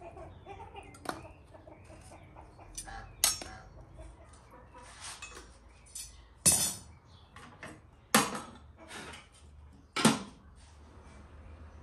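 Sharp metal clanks and clinks from a samovar being loaded with hot coals and having its metal chimney pipe fitted, with about four loud clanks about 3, 6.5, 8 and 10 seconds in. Chickens cluck in the background.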